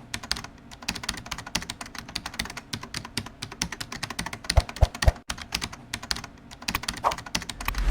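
Small hard plastic Lego Technic pieces clicking and rattling in quick, irregular succession, with two heavier thumps about halfway through.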